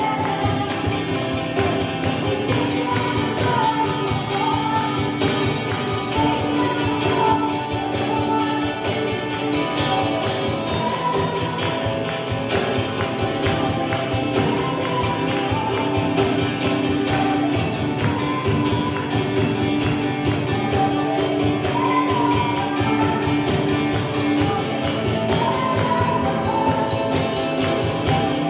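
Worship music with singing over a band, playing steadily.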